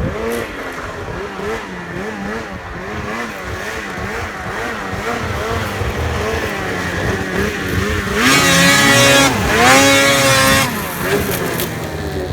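Snowmobile engine revving up and down in quick repeated blips of the throttle. About eight seconds in come two louder, high full-throttle revs, each about a second long.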